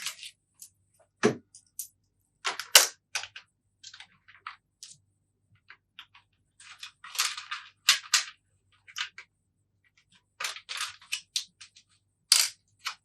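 Irregular clicks, taps and short rustles of hands handling small hardware parts and tools, a few sharp knocks louder than the rest.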